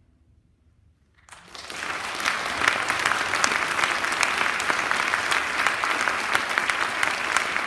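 Audience applauding in a concert hall: after about a second of near silence at the end of the song, the clapping breaks out, builds quickly and then holds steady.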